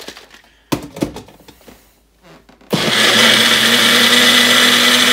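Personal bullet-style blender: a couple of knocks as the cup is handled, then about two and a half seconds in the motor starts and runs steadily with a constant high whine, blending a banana, almond-milk and protein-powder shake.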